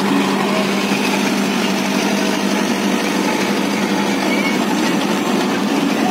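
Mahindra Arjun Novo 605 DI tractor's diesel engine running steadily under load as the tractor tills overgrown grassland, a constant unbroken drone.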